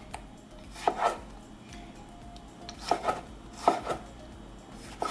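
Chef's knife slicing through tomatoes and knocking on a wooden cutting board. The cuts come at irregular intervals, each one a quick double knock of blade on wood.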